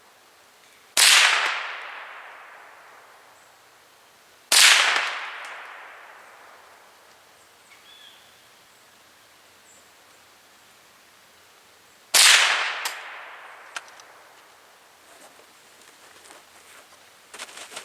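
Three single shots from a Ruger 10/22 semi-automatic .22 LR rifle, about a second in, at about four and a half seconds and at about twelve seconds, each sharp crack trailing off in a long echo. A few light clicks near the end.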